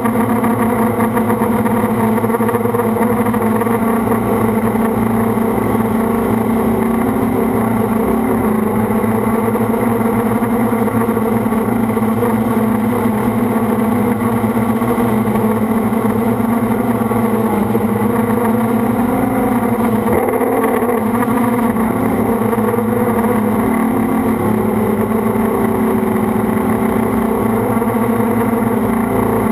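FPV quadcopter's motors and propellers buzzing steadily, picked up by the drone's onboard camera, the pitch wavering up and down with the throttle.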